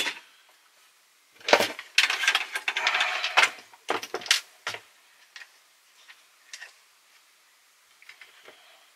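Hands handling an opened cassette recorder's plastic housing and small parts: sharp clicks about a second and a half in, a busy stretch of rattling and scraping, then a few more clicks that thin out to faint ticks.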